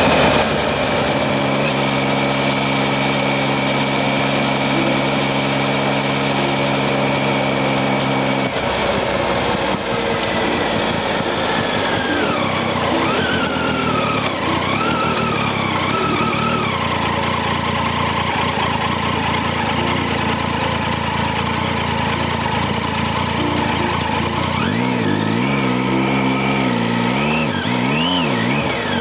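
Triumph Tiger 800XC's three-cylinder engine running on the road, with wind rushing over the microphone. The engine note is steady for the first several seconds, drops in pitch around the middle as the bike slows, and rises and falls near the end as the throttle is worked.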